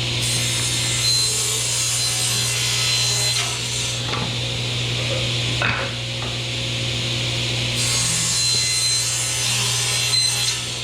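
A power tool runs steadily against plywood with a continuous rasping, abrasive sound over a steady motor hum.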